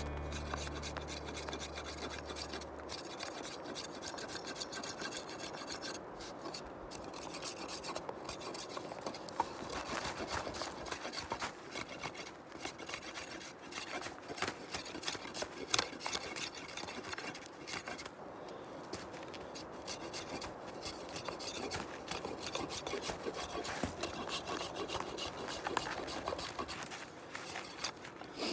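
Knife blade scraping and shaving wood in repeated short strokes, shaping a bow stave.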